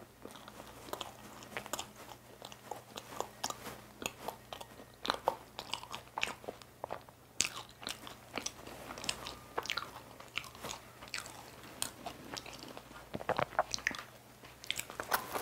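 A person eating: chewing, with wet lip smacks and finger licking, heard as many short, sharp mouth clicks.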